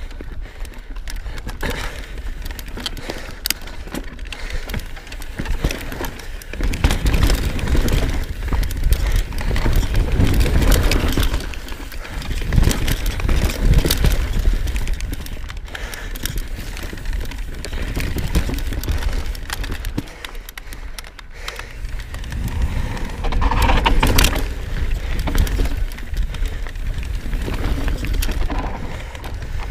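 Knolly Fugitive full-suspension mountain bike riding down a dirt and root singletrack: tyres rolling over the ground and the bike rattling and knocking over bumps, with wind rumbling on the camera's microphone.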